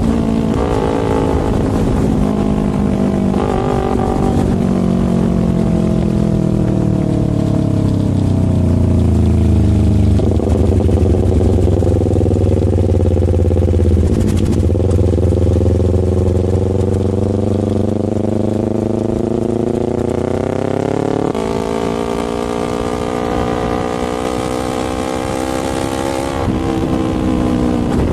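Motorcycle engine running under way. Its pitch falls for several seconds as it slows, holds low, then climbs steadily as it speeds up again, with an abrupt change in tone about three quarters of the way through.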